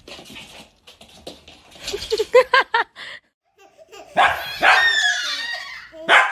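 A dog barking: a quick run of short high yips about two seconds in, then louder barks from about four seconds in and once more near the end.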